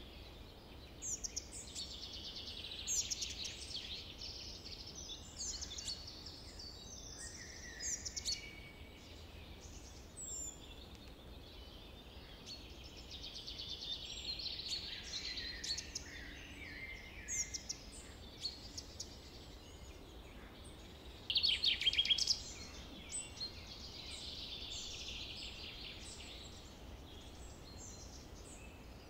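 Several birds singing and calling at once, a steady run of short chirps and trills, with one louder, rapid trill about two-thirds of the way through.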